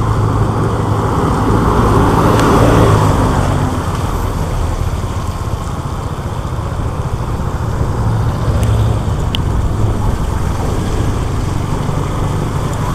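Motorcycle engine running steadily while riding on wet pavement, with tyre and road noise; it swells a little about two to three seconds in.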